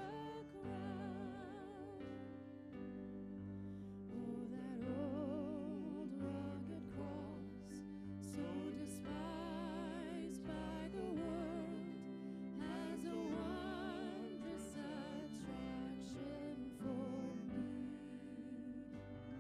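Worship music: a slow hymn whose melody wavers with vibrato over held low accompanying notes.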